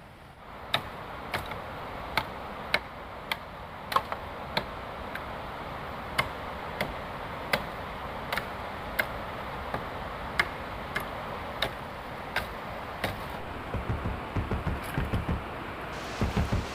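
Sharp knocks repeated roughly every half-second to second over a steady hiss. A low pulsing beat comes in near the end.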